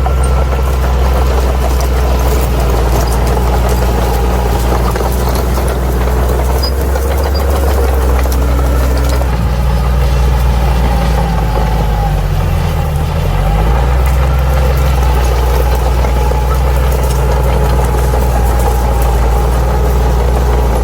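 Bulldozer's diesel engine running steadily. About twelve seconds in, its pitch briefly dips and recovers.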